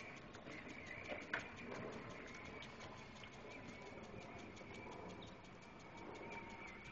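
Faint outdoor ambience: a steady, high-pitched drone of insects, slightly wavering in pitch.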